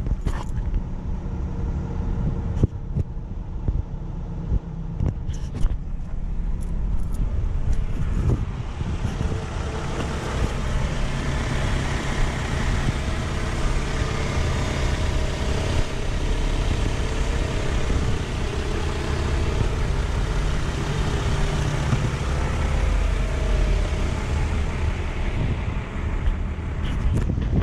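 Toyota RAV4's 2.0-litre four-cylinder engine idling steadily, louder and hissier from about eight seconds in. A few sharp clicks and knocks in the first six seconds.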